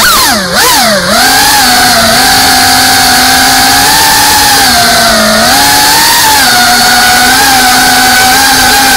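FPV racing quadcopter's electric motors and propellers whining loudly. The pitch swoops down and up twice in the first second or so as the throttle changes, then holds a steadier high whine with small rises and falls.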